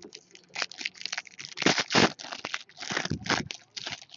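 Shiny foil wrapper of a Panini Brilliance trading-card pack crinkling and crackling in irregular bursts as it is handled and opened, loudest about two seconds in and again near three seconds.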